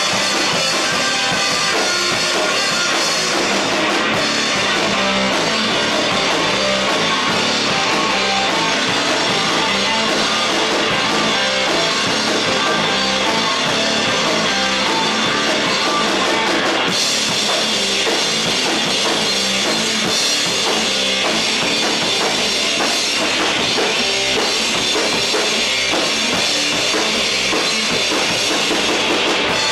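A rock band playing live, with a drum kit and guitars. The level stays loud and steady, and a little over halfway the music moves into a new, busier section with more drum hits.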